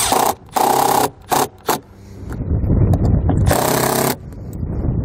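Cordless drill driving screws into the baggage lock actuator on a compartment door, in short trigger pulls: several quick bursts in the first couple of seconds and another about three and a half seconds in, with a low rumble in between.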